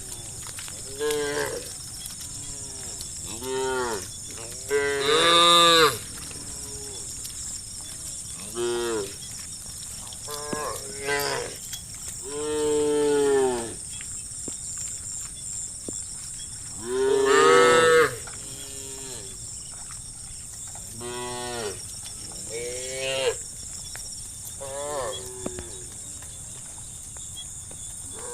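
Cows mooing over and over: about a dozen drawn-out calls of differing length and pitch, the loudest about five and seventeen seconds in, over a steady high hiss.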